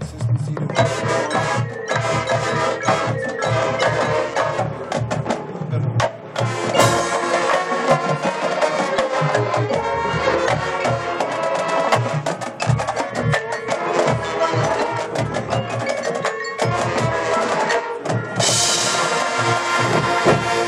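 Marching band playing live: brass and winds over front-ensemble percussion, with mallet instruments, drums and sharp wood-block-like hits. About 18 seconds in, a brighter, fuller swell comes in.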